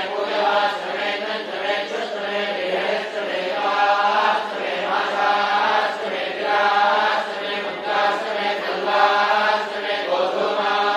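Hindu ritual mantras chanted in a continuous, steady recitation, the phrases recurring every second or two.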